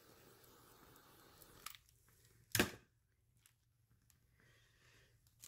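Small handheld torch flame hissing steadily while popping surface bubbles in freshly poured epoxy resin, shut off about a second and a half in. About a second later there is a single sharp knock.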